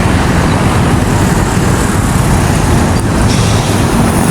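Steady road and engine noise from a moving vehicle, a continuous rumble with a hiss over it.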